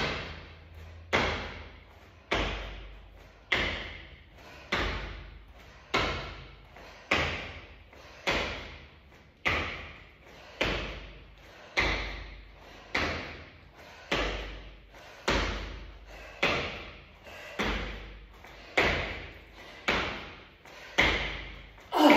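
A person doing squat jumps, each landing a thud on the floor, about twenty in a steady rhythm of a little under one a second, each followed by a short ring-out.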